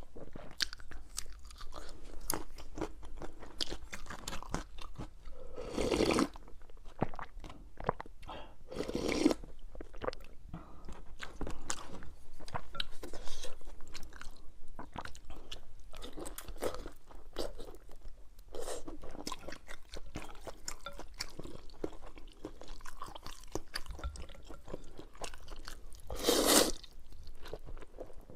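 Close-miked chewing and crunching of spicy rice noodles and tofu skin, with many small wet mouth clicks. A few louder bites stand out about six, nine and twenty-six seconds in.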